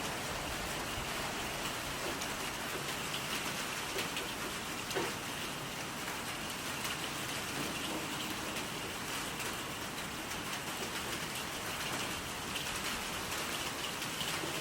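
Steady rain falling, with many separate drop hits ticking on surfaces close by over an even hiss.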